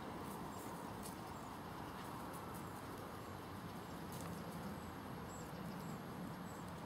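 Quiet, steady outdoor background noise with a few faint, irregular ticks.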